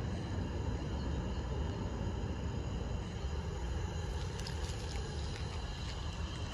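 Steady low background rumble of a city street, with a few faint clicks about two-thirds of the way in.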